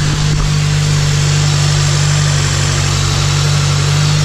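Toyota Celica engine idling steadily, freshly started and left to warm up.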